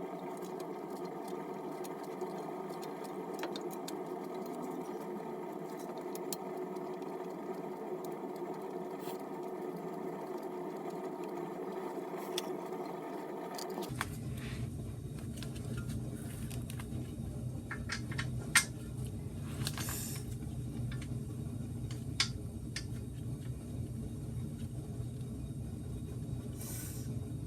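A steady background hum, its deeper part filling in about halfway through, with scattered clicks and light metallic taps as the brake caliper and its bolts are worked into place by hand. One sharp click about two-thirds of the way in is the loudest.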